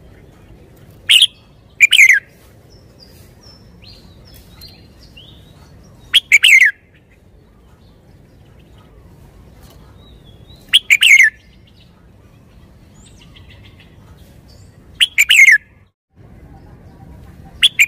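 Red-whiskered bulbul singing loud, short whistled phrases, each under a second and falling in pitch, repeated about every four to five seconds, with faint chirps in between.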